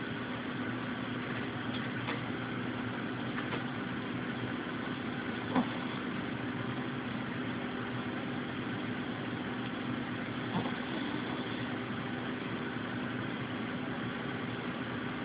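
A pet snoring as a steady, continuous rumble, with a light click about five and a half seconds in and a fainter one near ten and a half seconds.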